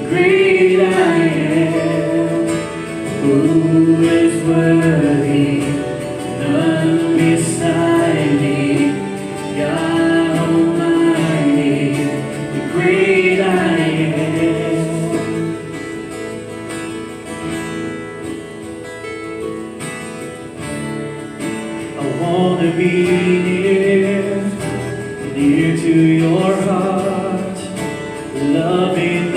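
Live worship band playing a slow song: voices singing over acoustic guitars and keyboard. The music swells, eases off in the middle, then builds again near the end.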